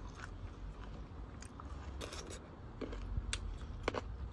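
A person chewing and crunching a mouthful of bamboo-shoot curry eaten by hand, with a few short sharp clicks of mouth and fingers.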